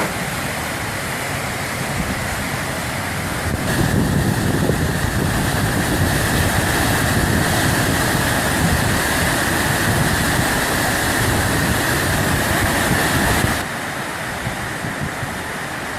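Waterfall pouring, a loud steady rush of falling water that swells about three and a half seconds in and eases back near the end.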